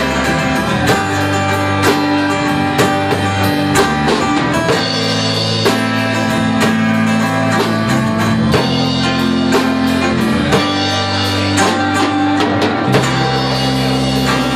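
Live band music: strummed guitars over a Sonor drum kit keeping a steady beat, with an accented drum hit about once a second.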